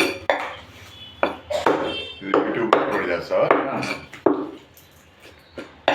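Butcher's cleaver chopping raw chicken into pieces on a chopping block: a series of sharp, irregular chops, with a short lull near the end.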